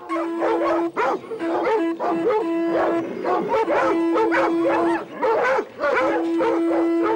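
A pack of hunting dogs barking and baying together in many overlapping calls. Under them a steady held note cuts out and comes back several times.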